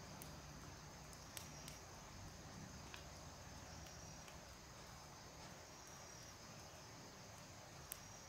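Faint outdoor ambience with a thin, steady high insect trill that comes and goes, and a few faint sharp clicks.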